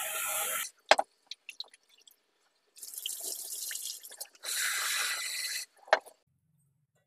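Water running and splashing as rice is rinsed by hand in a steel pot at a kitchen tap, then poured off in two spells. A sharp metal knock sounds about a second in and again near the end, as the pot is handled in the sink.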